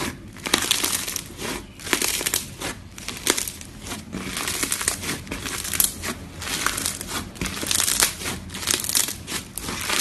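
Slime being squeezed and worked by hand, giving dense crinkly crackling and popping that swells with each uneven squeeze.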